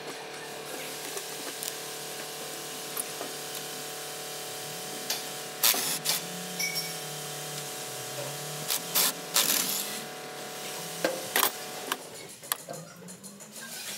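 A steady whirring motor hum, overlaid by several sharp metallic clicks and clanks from hand tools working on a diesel engine, clustered in the middle of the stretch.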